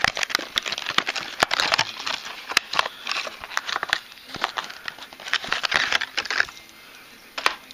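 Hard plastic fishing-lure box being opened and handled: a quick run of sharp plastic clicks and rustles that thins out near the end, with one last click.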